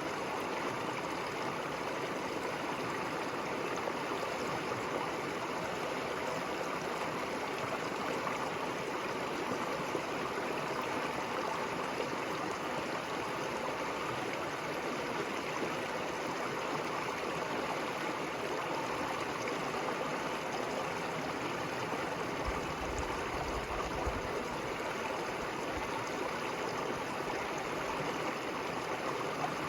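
River water running over stones, a steady rushing and gurgling flow. A brief low rumble comes in about three-quarters of the way through.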